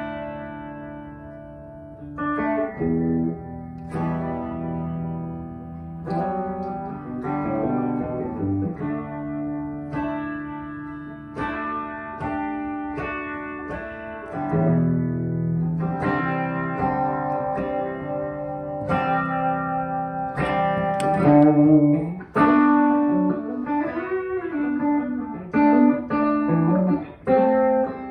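Electric guitar played through a pedalboard of effects pedals, picking chords and single melody notes that ring out and overlap.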